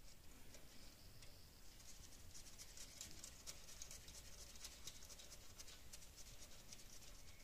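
Faint, rapid small clicks and light scratching of hands working small parts in a Fiat 500's distributor while the condenser wire is fitted to the contact points. The clicks grow more frequent from about two seconds in.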